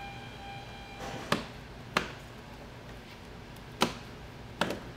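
Four sharp snaps from the large diffuser sheet of an LED TV's backlight as it is flexed and lifted off the panel stack.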